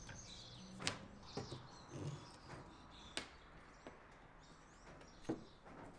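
Faint birds chirping in the background, with a few light clicks and knocks from tools and wood being handled on a workbench.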